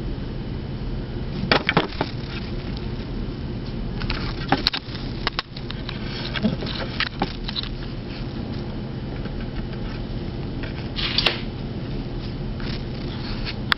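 Kittens scampering and playing on a tiled floor: scattered light clicks, taps and knocks in small clusters, over a steady low hum.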